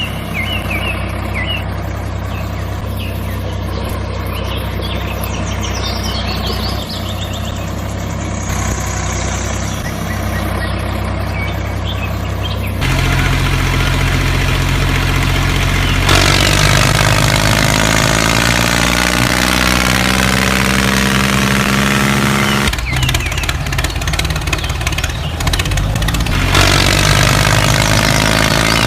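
Vehicle engine running steadily, in several stretches that change abruptly. Brief high chirps sound in the first few seconds.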